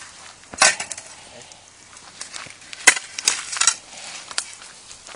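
A steel shovel scraping and scooping hot ash and grit over a slab, burying bread dough in the embers to bake. There is one long scrape about half a second in, then a few sharp scrapes and knocks around three seconds in.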